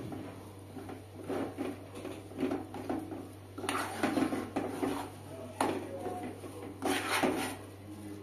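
Metal spoon stirring and scraping a thick, chunky mixture around an aluminium pot, in irregular strokes, with louder scrapes about four seconds in and again near the end. A steady low hum runs underneath.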